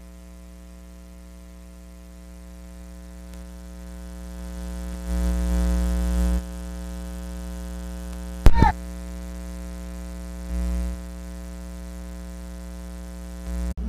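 Steady electrical buzz. It swells louder for over a second about five seconds in and again briefly near eleven seconds, with a sharp, loud pop about eight and a half seconds in.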